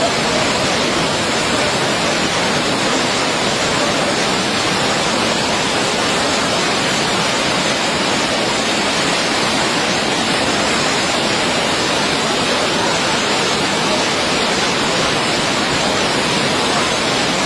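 Floodwater discharging through the opened gates of the Aswan High Dam, a steady loud rush of falling water.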